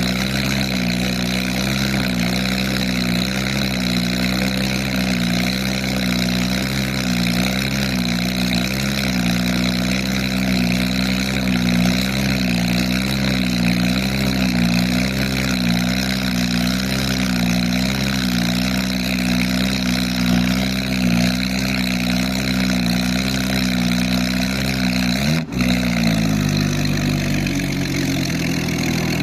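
Porsche 911 GT3 RS (992) 4.0-litre flat-six idling through an Fi aftermarket exhaust, a loud steady note with a gentle waver. About 25 seconds in there is a brief break, after which the idle eases a little lower.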